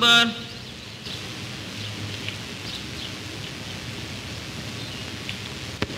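Hiss and crackle of a 1930s newsreel soundtrack, with faint scattered high chirps and one sharp click near the end. A chanted prayer voice breaks off at the very start.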